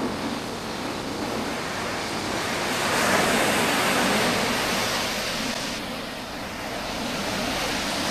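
Lake Superior surf breaking on a sandy beach: a continuous rush of waves that swells about three seconds in and eases off around six seconds.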